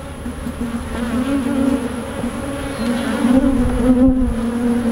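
Honey bees buzzing around an opened hive as a frame is held out for inspection: a steady, dense hum that wavers slightly in pitch.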